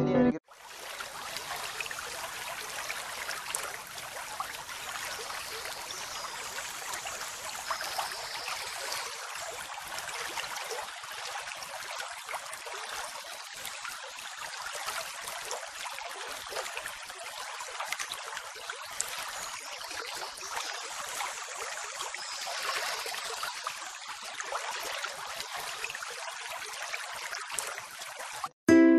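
Steady hiss of flowing water, even and unbroken, cutting off suddenly near the end.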